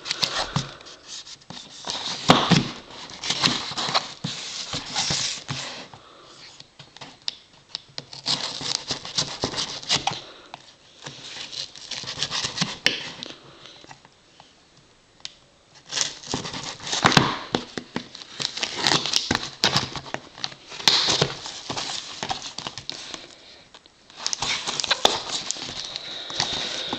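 Small knife slitting the packing tape on a cardboard mailing box, with scraping, tearing and rustling as the box is worked open. It comes in several stretches of a few seconds with quiet pauses between.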